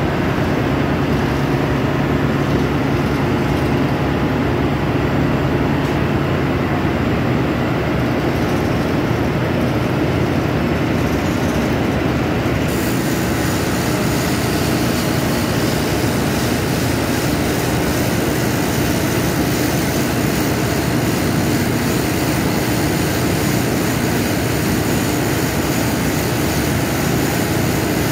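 Heavy machinery running steadily and loudly with a constant low hum. About halfway through, a high hiss joins in and continues.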